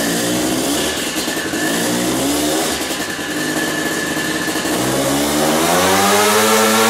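ATK Intimidator's 685cc Maico two-stroke single-cylinder engine running on a roller dyno. It runs unevenly at a lower pitch at first, then from about five seconds in climbs steadily in pitch and gets louder as it revs up under load.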